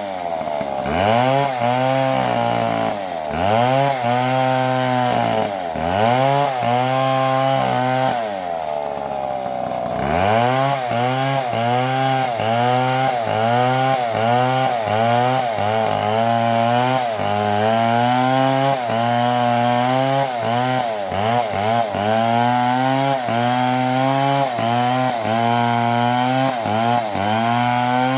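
A STIHL MS720 two-stroke chainsaw cutting, its engine pitch sagging under load in the cut and climbing back again and again. About a third of the way in it drops lower for a couple of seconds, then revs back up.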